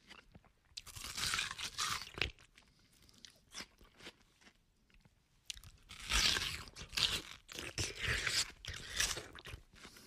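A person munching melon greedily: crunchy, wet bites and chewing, in two loud spells about a second in and from about six seconds in, with smaller clicks between.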